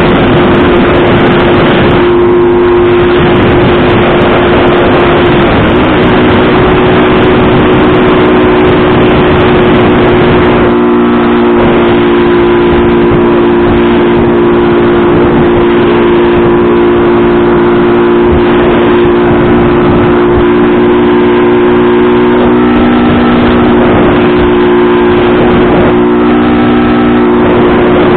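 Motorcycle engine running at a steady cruising speed under heavy wind rush on the microphone while riding. The wind noise eases about a third of the way through, leaving the engine's steady hum clearer.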